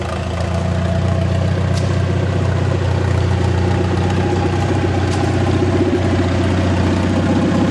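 Farmall row-crop tractor engine running steadily as the tractor drives closer, growing louder over about the first second and then holding even.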